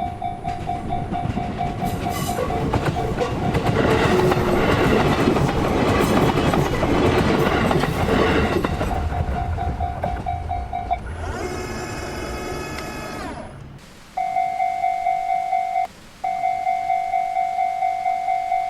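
Japanese level-crossing alarm ringing its repeated 'kan-kan' tone while a train passes through the crossing, its rumble and wheel noise swelling over the bell for several seconds. Near the end the train noise gives way to a sustained pitched tone, and after a brief break the crossing bell rings on alone.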